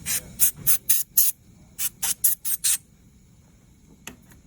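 Dental air syringe giving about ten short puffs of air in two quick runs of five, drying the surface of a PMMA provisional crown before the acrylic repair.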